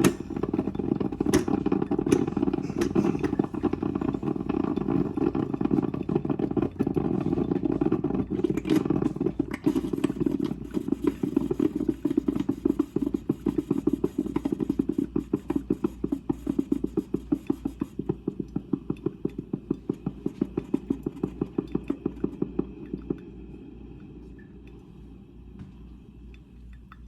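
Electric coffee maker gurgling and sputtering as hot water is pushed through during brewing. Partway in the gurgle settles into quick, regular pulses, about four a second. These weaken and die out near the end as the brew cycle finishes, leaving a faint hiss.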